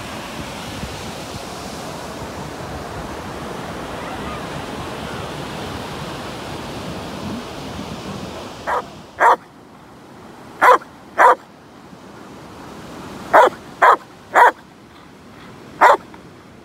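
Steady surf and wind noise on the microphone. About halfway through it gives way to a black Labradoodle barking eight times, short sharp barks in pairs and singles a second or two apart.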